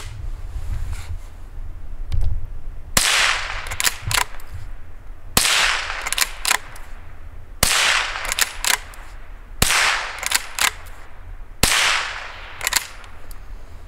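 Blaser R93 straight-pull .22 rimfire rifle fired five times, about two seconds apart. Each sharp crack has a fading ring, and within a second it is followed by a few quick metallic clicks as the straight-pull bolt is cycled to eject and chamber the next round.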